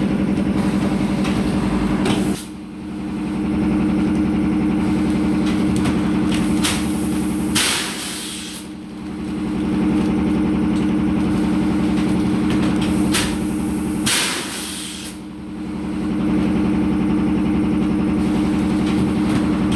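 Compressed-air machinery in a plastic bottle blowing plant running with a steady mechanical hum. The hum dips briefly every five to six seconds, and short sharp hisses of released air come near each dip.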